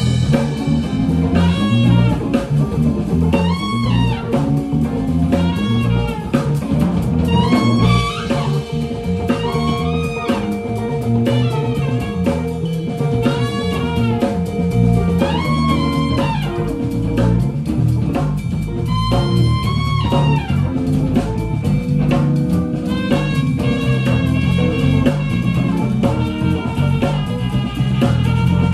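A live small jazz band playing: guitar and drum kit, with a lead line whose phrases swoop up and down in pitch.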